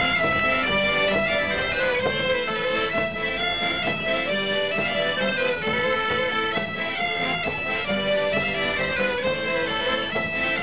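Folk ensemble playing a rondeau: a mouth-blown bagpipe and two button accordions, one a small diatonic, carry the tune together, with a fiddle, without a break.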